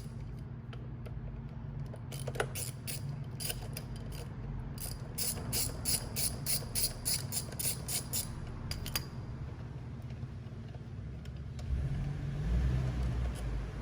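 Hand socket ratchet clicking in runs, about three clicks a second, as caliper mounting bolts are backed out on a motorcycle's front fork. A low rumble comes in near the end.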